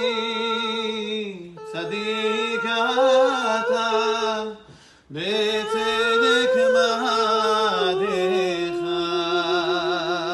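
Men singing a Hebrew religious melody a cappella, drawing out long held notes that waver in pitch, with a brief pause for breath about halfway through.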